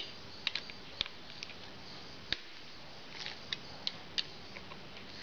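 Irregular small clicks and taps from gloved hands and a small tool handling the screws and metal cover at a motorcycle's handlebar clamp, over a faint steady hiss.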